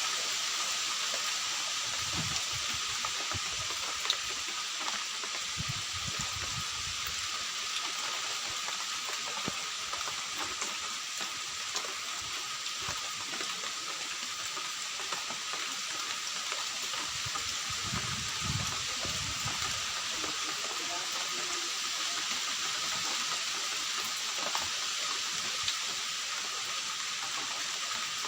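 Steady rain falling, an even hiss with no change in strength, with a faint steady high tone underneath.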